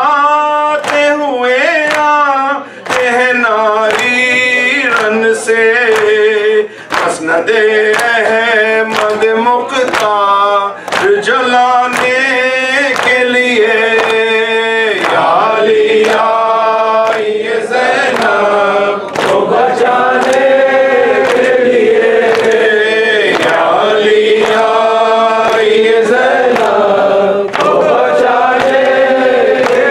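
A man chanting a noha, a Muharram lament, unaccompanied and amplified through a microphone, in long melodic phrases with held, wavering notes.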